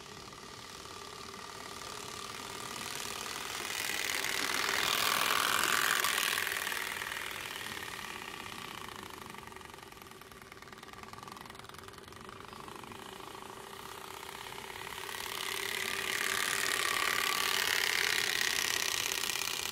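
Turbospoke V2.0 bicycle exhaust: plastic cards flicking against the spokes inside a plastic exhaust housing, making a rattling, motorbike-like buzz. It swells as the bike passes close about five seconds in, fades, and swells again near the end.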